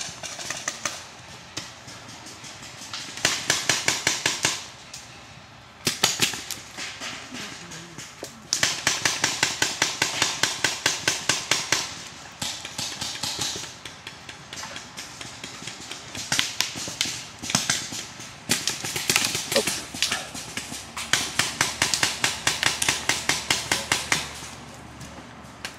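Paintball markers firing in rapid strings of shots, several a second, in bursts of one to a few seconds with short pauses between.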